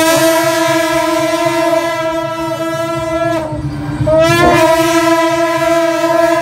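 A loud horn sounds two long held notes at the same pitch. The first lasts about three and a half seconds. After a short break, the second starts about four seconds in with a brief upward slide.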